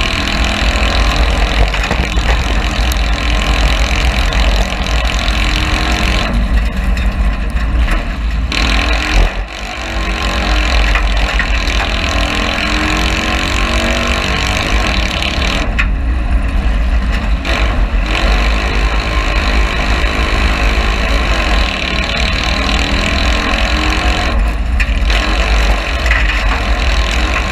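Citroën 2CV cross car's air-cooled flat-twin engine running hard under racing load, heard from inside the caged cabin over a deep rumble and loud road noise from the dirt track. The upper part of the sound drops away briefly a few times, about six, sixteen and twenty-four seconds in.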